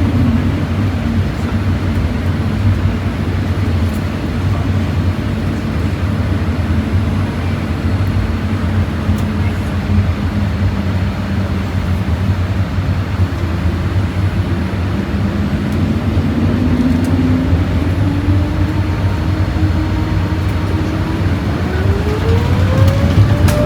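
Boeing 787-8 takeoff heard from inside the cabin: a loud, steady low rumble, with a whine that climbs steadily in pitch over the last several seconds.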